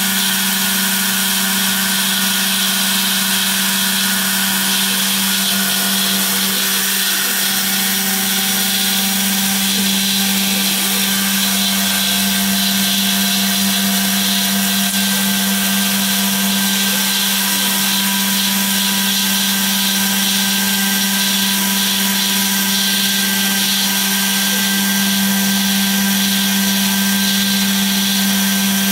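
CNC router spindle running at steady speed while a small end mill cuts a slot in foam board: a constant motor hum with several steady higher tones over a hiss.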